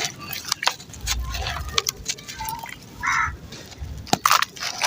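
Wet sand-cement chunks crumbling and crunching in water: irregular sharp crackles and clicks, the loudest about four seconds in.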